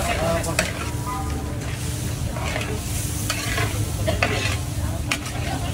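A long metal spatula stirring and scraping meat in a giant wok, with irregular clanks of metal on metal over a steady frying sizzle.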